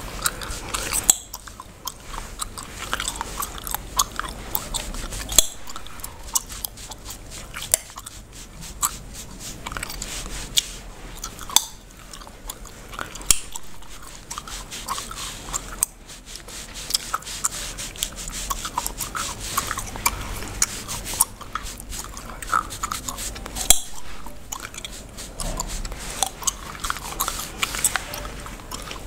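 Bubblegum chewed and cracked close to the microphone: irregular sharp snaps, several a second, with chewing between them. Fingers work through hair on a scalp underneath.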